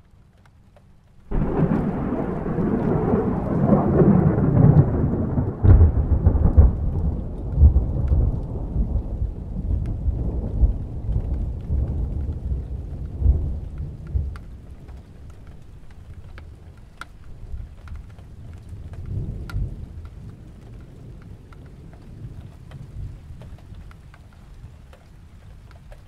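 Distant thunder: a sudden clap about a second in opens into a long, deep rumbling, with a second crack some six seconds in. The rumble then dies away slowly, with a fainter roll later on.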